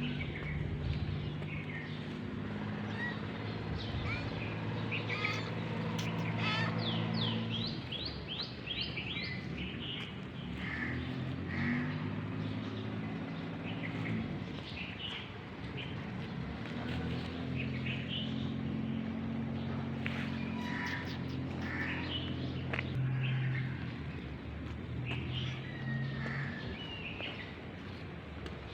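Small birds chirping and calling again and again, with a quick run of falling notes about seven seconds in. Under them runs a low, steady hum that comes and goes.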